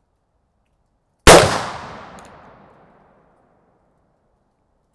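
A single black powder shot from a brass-framed reproduction 1858 Remington New Model Army percussion revolver about a second in, its report echoing away over a second and a half, followed by a faint click.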